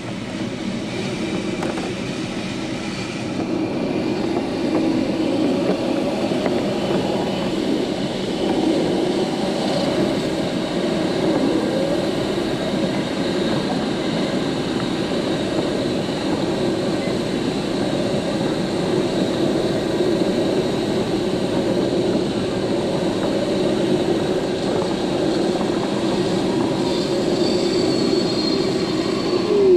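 Wind rushing over the canopy and fuselage of an ASW 27 glider flying a fast low pass. It is a steady, engineless airflow rush that grows a little louder about four seconds in as the speed builds.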